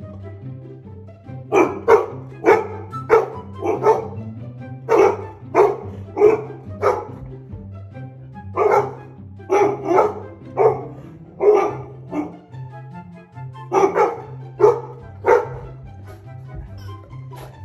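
Dog alert barking at someone outside the window, in four bursts of three to five loud barks, over background music with a steady bass line.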